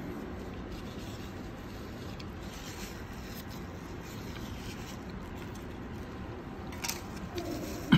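Steady background room noise with faint rubbing and handling sounds, and a short click just before the end.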